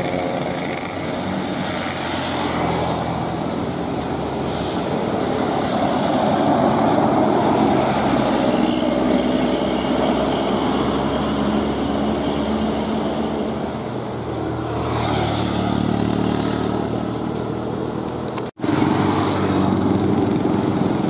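Road traffic passing close by: the diesel engine of a coach bus and the engines of motorcycles going past, one after another. The sound drops out briefly near the end, and a louder engine follows.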